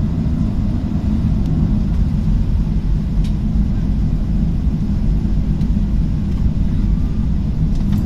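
Steady low cabin rumble of a Boeing 737-800's CFM56 turbofan engines at low thrust on the ground, heard from inside the passenger cabin.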